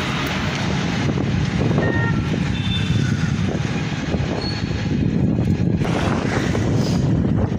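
Wind buffeting the microphone of a phone carried on a moving bicycle: a steady low rush of wind noise.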